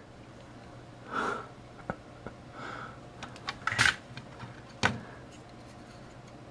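A plastic multimeter case and circuit board being handled: scattered light clicks and taps, the sharpest about four seconds in and another a second later, over a faint steady low hum.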